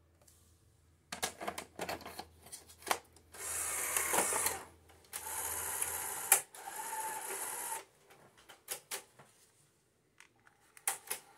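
A SuperBeta Betamax video cassette recorder taking in a cassette. Clicks and clacks as the cassette goes in are followed by two runs of the loading motor whirring as the tape is threaded, then a few more mechanical clicks near the end as playback begins.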